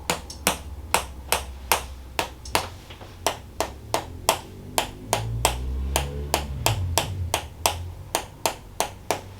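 Toksen therapy: a wooden mallet tapping a wooden wedge on the shoulder muscles, sharp knocks in an even rhythm of about three a second, done to loosen tight shoulders.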